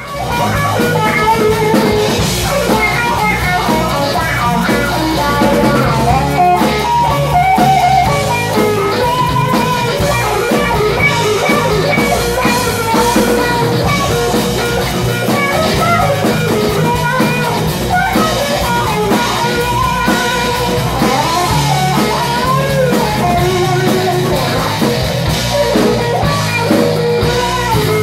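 Live rock band playing a Celtic tune, opening with an electric guitar solo over bass, drums and keyboard. The music starts right at the beginning, straight out of silence.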